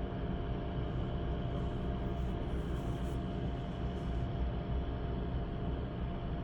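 Steady low mechanical drone from nearby drilling-rig machinery, running continuously with a constant hum and no distinct bangs.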